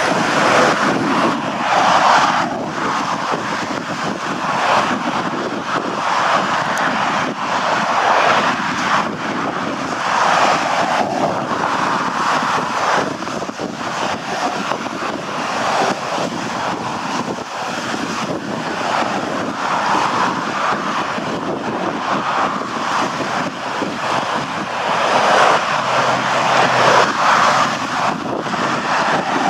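Jet airliner on approach to land, its engines a steady rushing noise, mixed with gusty wind buffeting the microphone in swells every few seconds.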